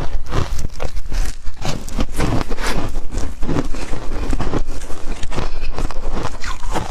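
Ice being bitten and chewed close to the microphone: a dense, unbroken run of crisp crunches and crackles.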